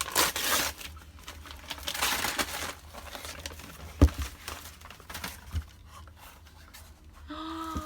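Paper crinkling and tearing in bursts as a wrapped box is opened by hand, with a sharp knock about four seconds in.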